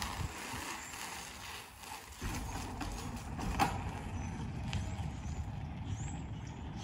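Outdoor ambience: a low, uneven rumble that strengthens about two seconds in, a single sharp click about three and a half seconds in, and a few faint high chirps near the end.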